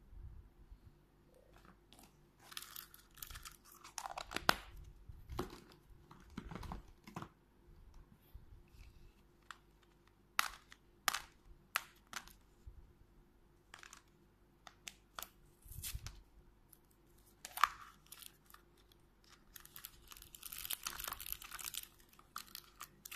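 Hard plastic toy capsule and small plastic figures being handled: a scattering of sharp clicks and knocks. Near the end comes a stretch of crinkling from a thin plastic wrapper.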